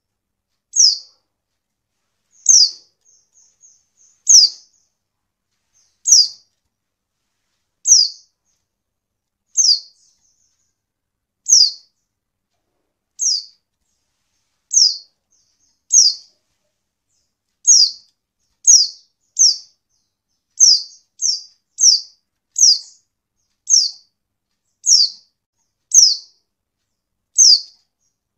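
Female white-eye (pleci) calling: short, high notes, each a quick downward slur, one every second or two and coming faster in the second half. The call is used to prompt male white-eyes to call back.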